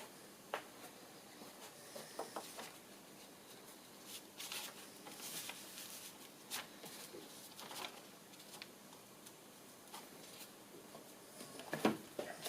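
Scattered light clicks, taps and rustling of hands handling tools and wood, with a louder cluster of knocks near the end.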